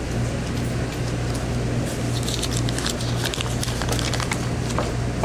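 Steady low electrical hum at a store checkout counter, with a scatter of light clicks and rattles starting about two seconds in.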